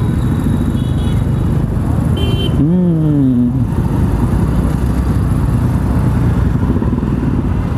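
Scooter engine and wind rumble while riding slowly through dense street traffic. There is a short high beep about two seconds in, then a brief rising-then-falling call about three seconds in.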